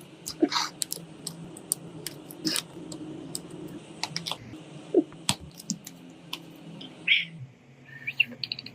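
Irregular light clicks and taps from a smartphone and small parts being handled during a repair, with a few short scrapes.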